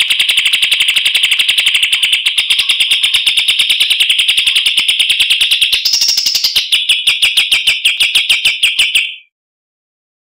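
A songbird's rapid trill of high notes, about a dozen evenly spaced notes a second. The phrase shifts about six seconds in and breaks off about nine seconds in.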